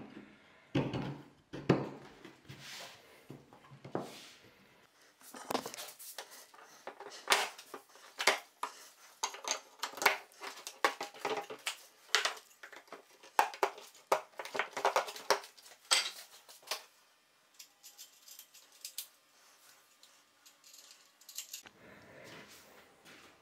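Wooden frame pieces knocking and clattering as they are handled and set on a workbench. A few dull thumps come first, then a dense run of sharp knocks and clicks that dies down about three quarters of the way through.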